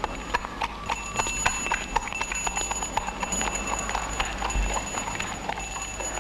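A horse's hooves clip-clopping on a hard street, several hoof strikes a second, as for a horse-drawn carriage passing.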